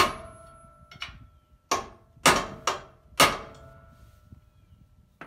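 A hammer striking a center punch on a galvanized steel trailer tongue, marking holes for drilling. About six sharp metal-on-metal strikes over the first three and a half seconds, each followed by a short ring.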